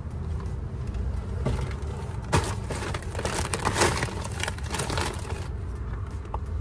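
Rustling, crinkling and a few sharp clicks of bags and items being handled close by, lasting a few seconds in the middle, over a steady low rumble.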